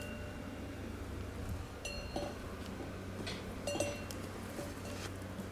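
A few light metallic clinks, each ringing briefly with a high tone, the clearest about two and four seconds in, over a steady low hum.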